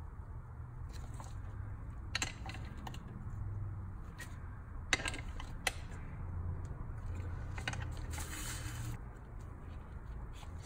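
Gloved fingers pressing a small rubber oil seal into its bore in an aluminium crankcase cover, heard as soft handling and rubbing with three small clicks about two, five and nearly six seconds in. A brief rustle comes about eight seconds in, all over a low steady hum.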